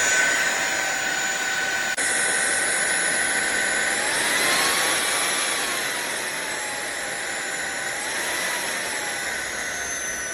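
Cordless stick vacuum cleaner's motor running with a steady rushing noise and a high whine. The sound changes abruptly about two seconds in, and the whine rises and falls in pitch twice.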